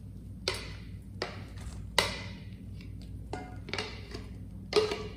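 A spoon scraping and tapping finely ground walnuts and garlic out of a small plastic blender jar into a stainless steel mixing bowl. The scrapes and knocks come as about seven short, separate strokes, the loudest about two seconds in and near the end.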